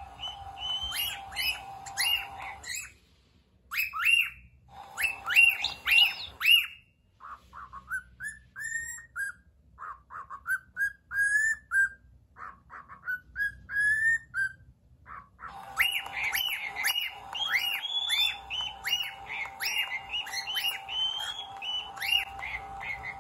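Cockatiel chirping and whistling in quick runs of short sweeping notes, broken by short pauses. A repeat-back walking toy plays the calls back. A steady hum runs under some of the runs.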